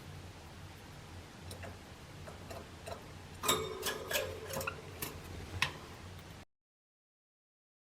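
A Java sparrow pecking and tapping with its beak: scattered sharp clicks, then a quick flurry of them about halfway through, mixed with a brief ringing tone.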